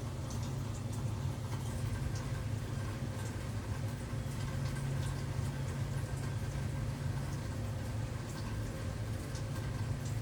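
Rain falling, with scattered single drops ticking irregularly, over a steady low hum.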